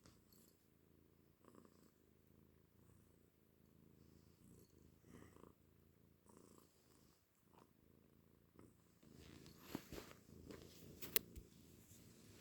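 Domestic cat purring, a faint low rumble repeating with each breath, likened to a motorbike. A few sharp clicks near the end, the loudest about 11 seconds in.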